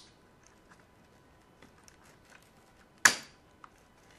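Light plastic clicks as the white plastic handle of an Electrolux ESI4005 iron is worked loose, then about three seconds in one loud, sharp snap as the handle comes free of its clips.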